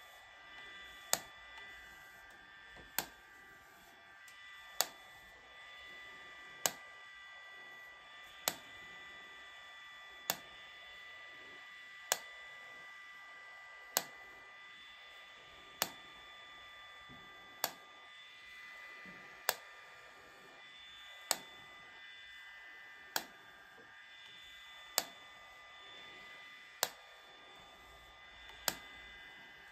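Handheld IPL (intense pulsed light) hair-removal device firing its flash about every two seconds, each pulse a sharp click, over a faint steady high whine from the device.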